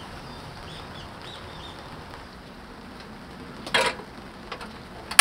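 Steady hiss of light rain, with a few faint bird chirps about a second in. Near the end a stainless steel pot is set down on a portable gas stove's metal pot supports with a short clatter, and a sharp click follows about a second and a half later.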